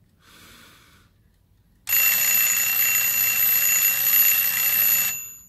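Antique brass carriage clock's alarm ringing rapidly and continuously for about three seconds, starting about two seconds in, then stopping.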